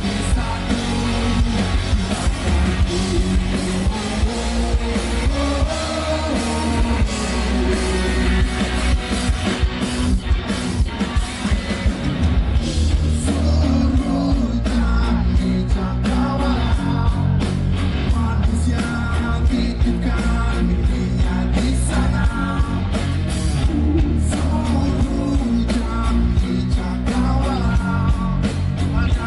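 Rock band playing live: distorted electric guitars, bass and drum kit, with a voice singing at times over the band.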